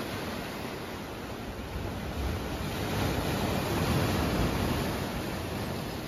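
Sea waves breaking and washing over dark boulders and a pebble shore: a steady rushing surf that swells a little about halfway through.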